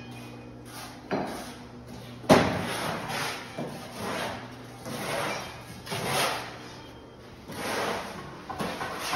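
Footsteps scuffing on a gritty concrete shop floor, about one step a second, with a sharp knock about two seconds in, over a steady electrical hum.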